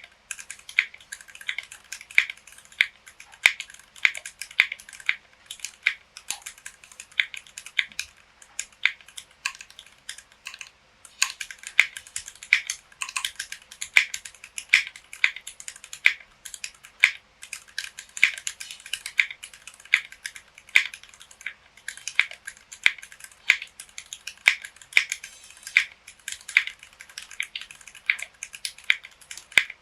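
Typing on a mechanical keyboard with stock Gateron Milky Yellow linear switches, PBT keycaps and an acrylic case: a fast, uneven run of keystroke clacks with a few louder bottom-out strikes, briefly pausing about ten seconds in.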